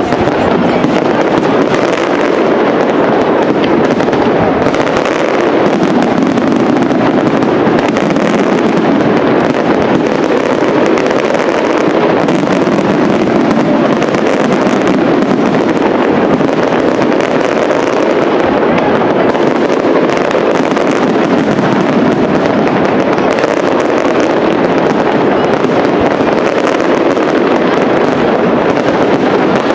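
Aerial fireworks of a castillo display firing as a dense, unbroken barrage of bursts and crackle, loud and steady with no pauses.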